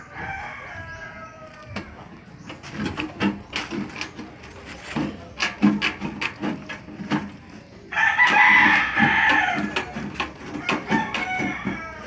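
Stanley tin snips cutting painted sheet-metal gutter, a quick run of sharp clicks with each bite of the blades. A rooster crows at the start and again, louder and for about two seconds, past the middle.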